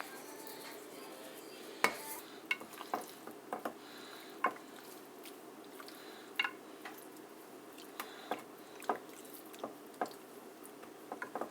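Scattered light clicks and knocks of kitchen handling while raw chicken breasts are seasoned with salt, pepper and Creole seasoning from shaker containers, at irregular moments about a dozen times.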